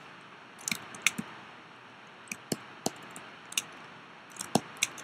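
Irregular clicks and taps from working a computer keyboard and mouse, about a dozen short sharp ones scattered through, some in quick pairs, over a faint steady hiss.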